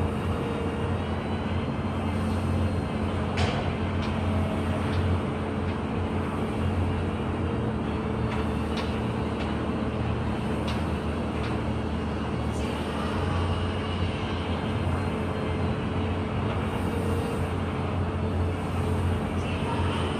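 Steady low mechanical hum of background machinery, with a few faint clicks here and there.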